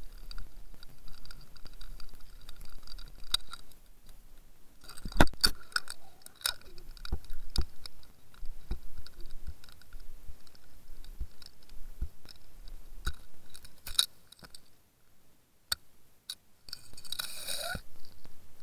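Irregular clicks and knocks picked up through an underwater camera housing, the loudest about five seconds in, over a faint whine at two pitches that comes and goes, with a short scraping rustle near the end.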